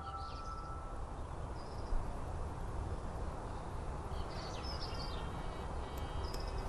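Outdoor ambience: a steady hiss over a low rumble, with short bird chirps a few times, about half a second in, near the middle and near the end. A held musical chime fades out in the first second.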